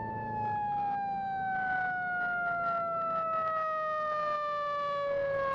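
Fire truck siren sounding one long wail that falls slowly and steadily in pitch, over a faint engine rumble.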